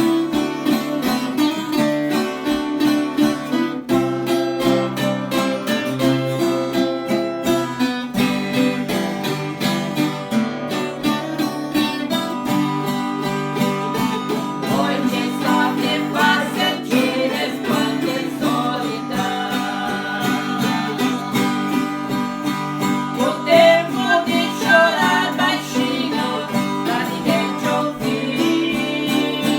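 Acoustic guitar strummed steadily in chords, accompanying voices singing a praise song.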